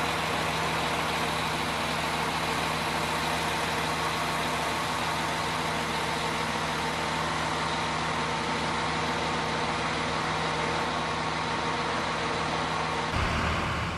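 Irish Rail 22000 Class diesel railcar standing at the platform with its underfloor diesel engines idling: a steady hum with a constant low drone. The sound shifts to a rougher, lower noise shortly before the end.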